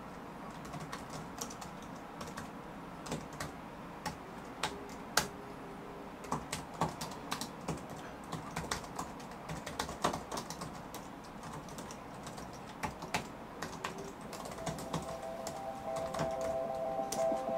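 Typing on an Apple wireless keyboard: an irregular run of light key clicks, some keystrokes louder than others. Music comes in faintly near the end.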